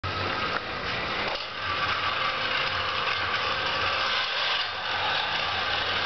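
Small electric motors of a homemade robot vacuum cleaner running with a steady whirr.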